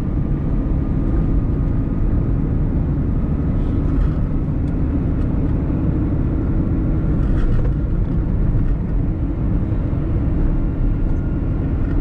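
Steady engine hum and tyre rumble of a car driving on an asphalt road, heard from inside the cabin, with a faint steady whine above it.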